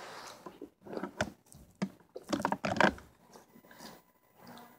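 Hard SweeTarts tangy candy being crunched and chewed in the mouth: a few sharp cracks, then a louder spell of crunching a little past halfway.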